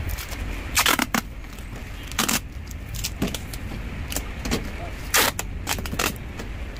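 Brown packing tape being pulled off its roll in short rasping strips and pressed onto a cardboard box. There are several loud pulls, about a second in, past two seconds and past five seconds, with smaller crackles of tape between them.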